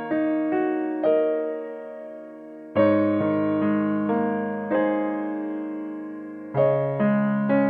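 Background piano music: gentle struck notes and chords, each ringing and fading before the next.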